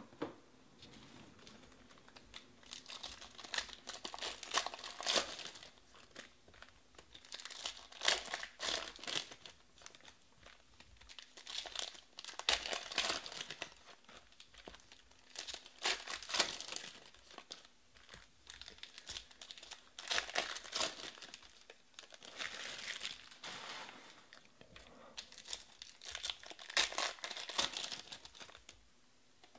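Foil wrappers of Panini Prizm baseball card packs being torn open and crumpled by hand, in repeated bursts of crinkling every few seconds.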